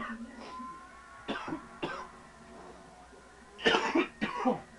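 A man coughing, about five harsh coughs in short fits, the two loudest near the end: a smoker's coughing after hits of cannabis from a bubbler.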